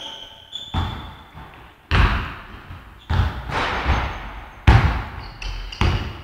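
A basketball bouncing hard on the court, about six heavy bounces roughly a second apart, with a few short high squeaks between them.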